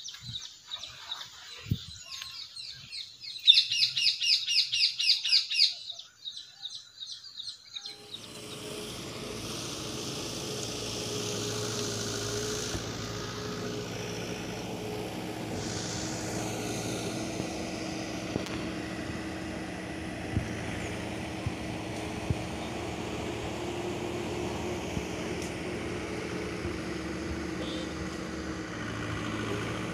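A bird chirping in a quick run of high calls for a couple of seconds, among other twittering. About eight seconds in this gives way to a steady noise with a low hum under it.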